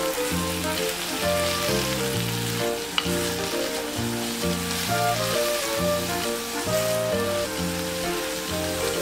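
Aged kimchi sizzling in sesame oil as it is stir-fried and stirred with a wooden spoon, a steady hiss, with one sharp click about three seconds in. A light background music track with a plodding bass line plays over it.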